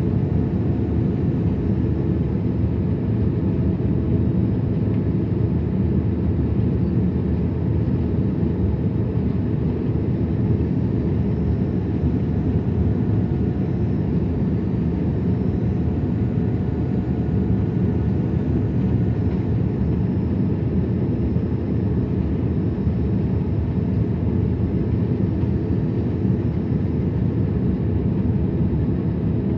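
Steady cabin drone of an Airbus A330 in flight: a constant low rumble of engine and airflow noise, heard from inside the cabin.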